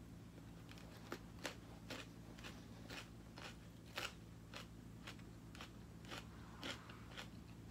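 Chewing a crisp celery stick topped with chicken salad: faint, sharp crunches about two a second.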